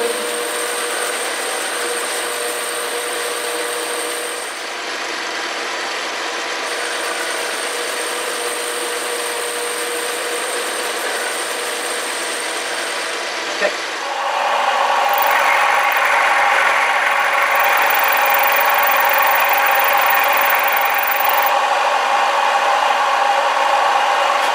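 Metal lathe running, turning a small metal part with a steady cutting sound. About 14 seconds in it gives way to a Nichols milling machine cutting a pocket with an end mill, louder and with a steady whine.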